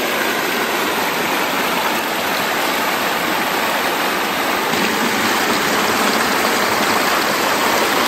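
Creek water pouring over a low rock spillway, a steady close-up rush of falling and splashing water.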